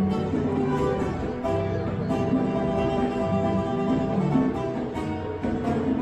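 Music with guitar and held string notes.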